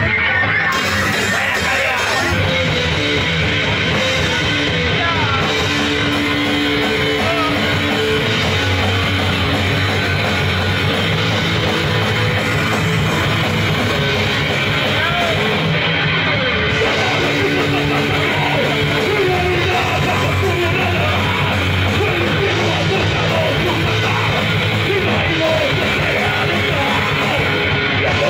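Punk rock band playing live, with electric guitar and drums, loud and dense.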